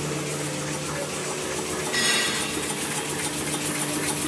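V-fold full-embossing facial tissue machine running: a steady mechanical hum with an even, fast ticking from the folding mechanism. There is a brief hiss about two seconds in.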